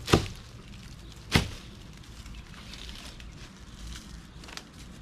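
Two sharp knocks, about a second and a quarter apart, over a faint steady background.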